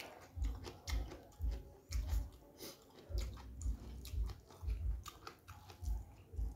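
A person chewing food close to the microphone: wet clicks and smacks with a dull thud at each chew, about two chews a second.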